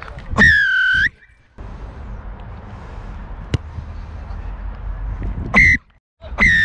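Rugby referee's whistle blown in three loud blasts: a long blast about half a second in, then a short one and a second long one near the end. Wind rumble and field noise lie beneath, with a single sharp click in the middle.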